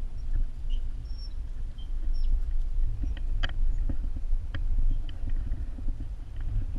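Wind buffeting the microphone and tyre rumble while riding a bicycle, a steady low rumble, with a few sharp clicks and rattles from the bike over the pavement about three to four and a half seconds in. A few short high chirps sound in the first couple of seconds.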